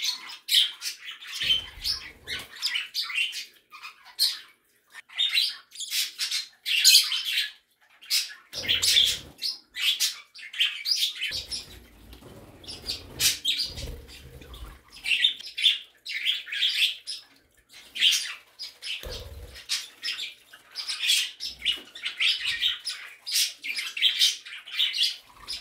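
A room of small pet birds (budgies, cockatiels, small parakeets and canaries) chirping and chattering in quick overlapping calls, with a few dull low bumps here and there.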